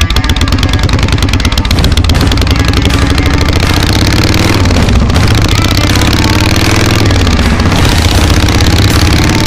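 Harley-Davidson Evolution V-twin engine accelerating through the gears, its pitch climbing and dropping back at an upshift about halfway through and again about three-quarters of the way, then climbing once more.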